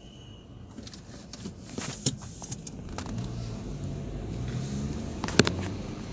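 Car running, its engine and road noise growing louder over the first few seconds, with scattered clicks and one sharp knock about five and a half seconds in.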